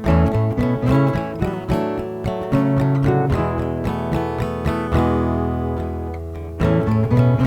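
Upbeat instrumental tune on acoustic guitar, plucked and strummed in a steady rhythm; about five seconds in a chord is left to ring for a moment before the playing picks up again.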